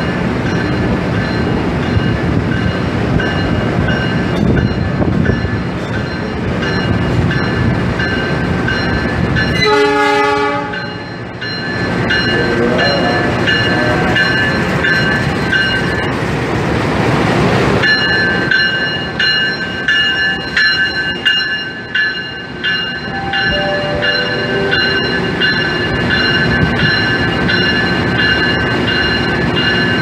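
CC 206 diesel-electric locomotive running past close by, with a short blast of its horn about ten seconds in over the steady sound of the engine.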